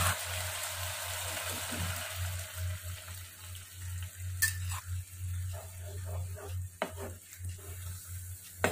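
Bitter gourd curry simmering in a nonstick pan with a soft sizzle as coconut milk is poured in, dying away over the first couple of seconds. After that, utensils scrape and tap against the bowl and pan as the curry is stirred, over a low steady hum.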